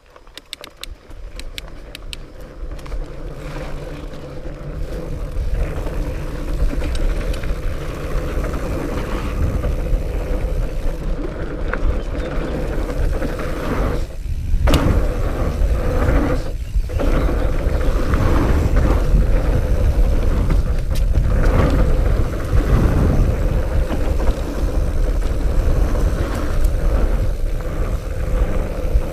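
Fat bike riding fast down a dirt trail: a steady rumble of wide tyres on the ground mixed with wind on the camera, rising over the first several seconds as speed builds and then holding loud, with a few light ticks near the start.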